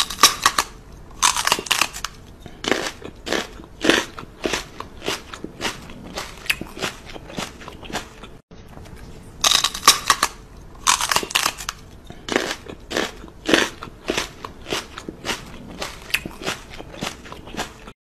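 A man's mouth nibbling and kissing a Weimaraner's ear: a long run of short crunching, smacking mouth noises, several a second, with a brief break about eight and a half seconds in.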